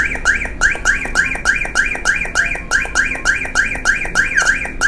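Electronic alarm tone from a triggered car alarm: short rising-and-falling chirps, about three a second, repeating steadily.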